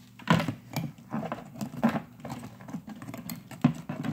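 Clear plastic zip-top bag crinkling and rustling as it is handled, with irregular small clicks and a couple of sharper taps.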